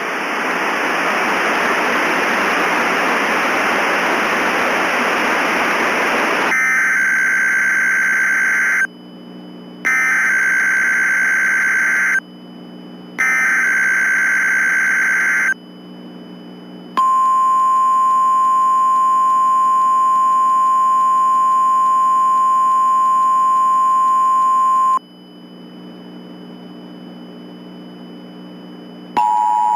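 Emergency Alert System sequence. It opens with about six seconds of radio static. Then come three bursts of screechy digital data tones about a second apart, the SAME header, and then a single steady alert tone held for about eight seconds. A few seconds of low hum follow, and the two-tone EAS attention signal starts just before the end.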